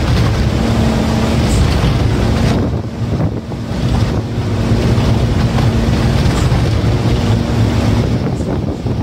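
Truck engine running steadily under way, heard from inside the cab, with wind and road noise over a low, steady hum.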